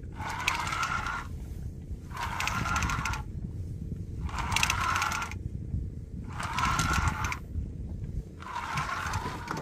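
Spinning reel cranked in five short spells about two seconds apart, each a whirring with fine clicking, as a hooked fish is pumped and reeled in. A steady low rumble runs underneath.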